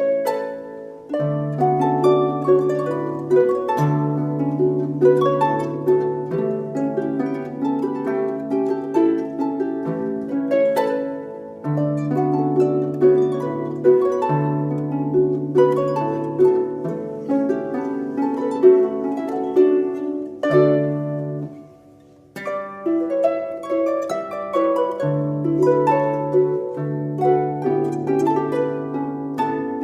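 Background music: a quick plucked-string melody, harp-like, over held low notes, with a brief break about 21 seconds in.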